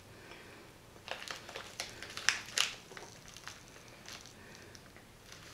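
Sweet packet crinkling as it is handled, in a cluster of sharp rustles between about one and three seconds in, with a few softer ones later.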